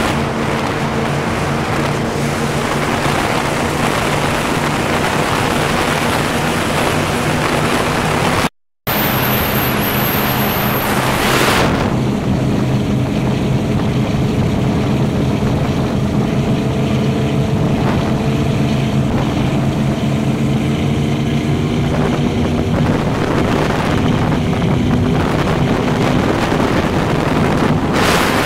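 Twin Mercury 496 HO V8 engines of a 36 ft Pantera offshore powerboat running steadily at speed, heard on board under the rush of wind and water off the hull. The sound breaks off for a moment about a third of the way in.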